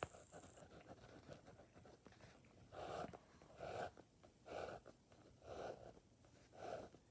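Faint scratching of a ballpoint pen drawing short lines on paper, a soft stroke about once a second from about three seconds in; otherwise near silence.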